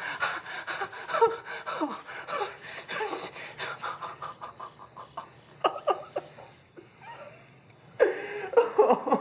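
A young man sobbing and gasping in fear, with panting breaths and whimpers between; it drops quieter through the middle and breaks out loud again near the end.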